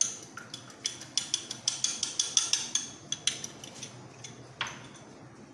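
A quick, irregular run of sharp clicks and light clinks for about three seconds, then a single click about four and a half seconds in.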